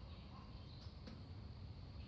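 Quiet background between shots: a low steady rumble with two faint clicks about a second in, and no gunshot.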